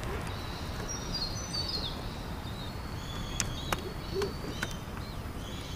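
Birds calling in the streamside trees: a quick run of short falling chirps about a second in, then high whistled notes, over a steady low background noise, with a few sharp clicks or ticks past the middle.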